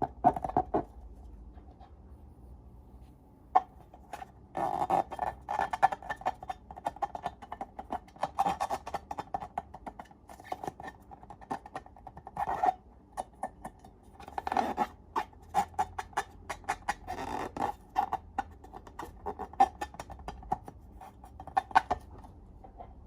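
Slime being squeezed and worked by hand, giving irregular bursts of sticky clicks and crackles.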